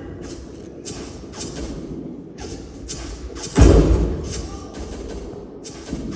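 Quiet stretch of the performance's playback track: soft knocks about every half second, with one loud, deep thud about three and a half seconds in.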